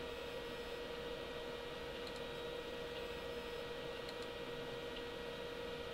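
Steady electrical hum with a light hiss, and two faint clicks about two and four seconds in.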